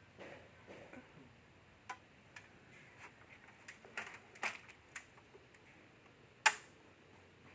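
Irregular small clicks and knocks, a few seconds apart, with one sharper knock about six and a half seconds in.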